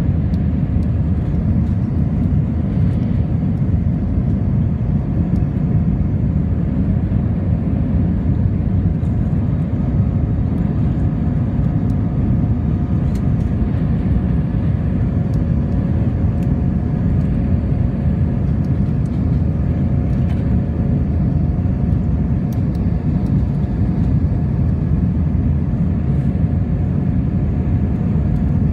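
Airliner cabin noise during the climb after takeoff: the jet engines and rushing air make a loud, steady roar, with a faint steady whine above it.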